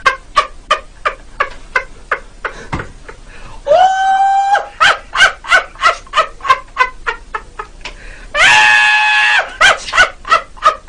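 Chicken-laugh sound effect: a rapid run of short cackling calls, about three a second, broken twice by a long held squawk, about four seconds in and again about eight and a half seconds in.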